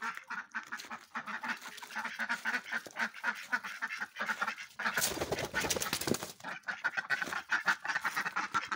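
A flock of domestic ducks quacking and chattering in rapid short calls. About halfway through there is a second-long rush of noise.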